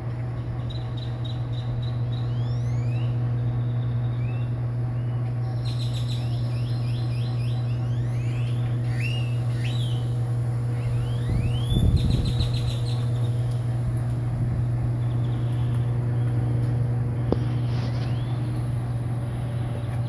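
A rotisserie corn roaster running with a steady low hum, while birds chirp repeatedly over it with short rising calls and ticking trills. A brief low rumble comes near the middle.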